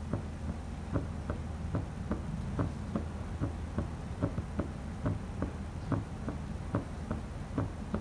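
Heart sounds picked up through a Stemoscope wireless stethoscope on a bare chest: an even run of soft thumps, a little over two a second, over a low steady hum. These are normal heart sounds.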